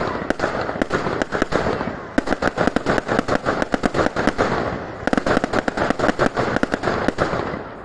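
Fireworks going off in a dense barrage of rapid bangs and crackles, several a second, thinning out near the end.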